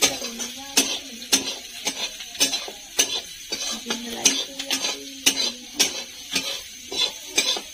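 Onions frying in oil, a steady sizzle under a cooking utensil knocking and scraping against the pan as they are stirred, with a sharp knock roughly every half second.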